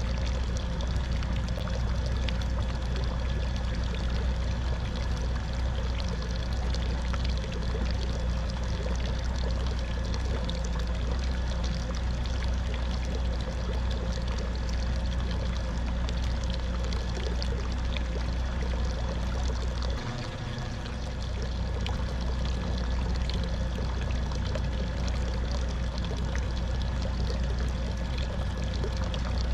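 Steady water noise of small waves lapping against a fishing boat's hull, with a steady low rumble underneath.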